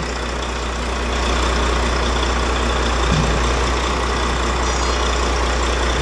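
Volvo truck's inline-six diesel engine idling steadily, running now that air has been bled out of its fuel system, the air that had made it hard to start.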